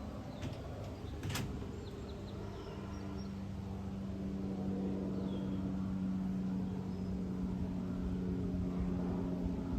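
Cessna 208B Grand Caravan's turboprop engine droning overhead on its landing approach, a steady hum that grows a little louder. A sharp click about a second in and a few faint bird chirps.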